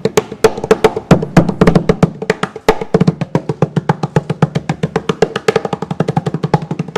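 Fast percussion beat: a dense, even run of drum-like hits, about eight to ten a second, with low thuds and sharp snare-like cracks.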